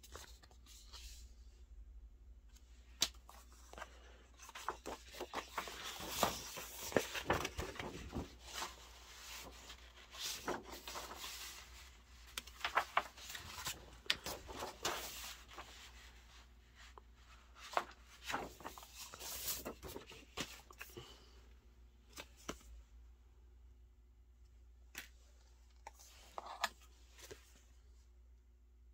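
Paper and card being handled: irregular rustling, scraping and light taps as glossy printed inserts, a folder and photocards are picked up, slid and shuffled. The handling is busiest through the middle and thins out to a few scattered taps near the end.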